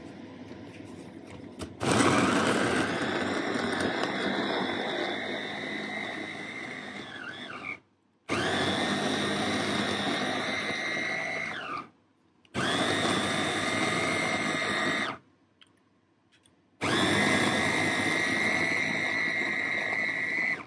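Electric kitchen blender motor run in four bursts of a few seconds each, with a steady whine, stopping sharply between bursts.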